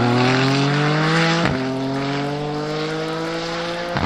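A tuned Audi TT RS's turbocharged 2.5-litre five-cylinder and a 9FF Porsche accelerating flat out side by side. The engine note climbs in pitch and fades as the cars pull away, with gear shifts about one and a half seconds in and again near the end.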